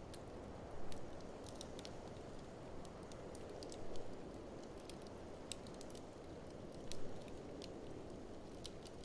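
Wood fire in an open fireplace crackling, with scattered sharp ticks and a few louder pops about three seconds apart, over a steady low rushing noise.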